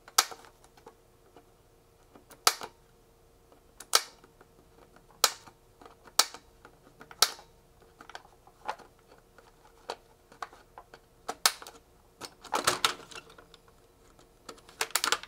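Diagonal wire cutters snipping through soldered wire links between two circuit boards: a series of sharp snips, about one every second or so, with a quicker cluster of clicks and handling rustle near the end.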